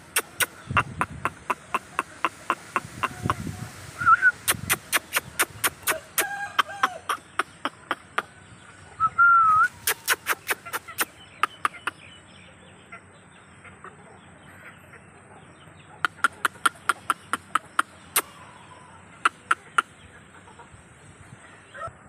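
Aseel chickens making short clucks and calls, with a louder call a little before halfway, over long runs of sharp, evenly spaced clicks at about three a second.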